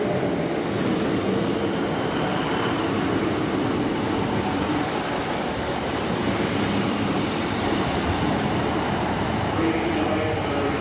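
Northern Class 153 diesel multiple unit running past along the platform: a steady mix of underfloor diesel engine and wheels on the rails.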